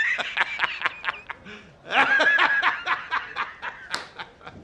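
High-pitched snickering laughter in quick pulses, in two bouts, the second starting about two seconds in.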